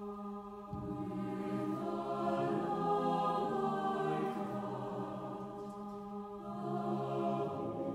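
Mixed choir of men's and women's voices singing slow, sustained chords. Lower notes come in under a held chord about a second in, the sound swells through the middle, and the chord changes again near the end.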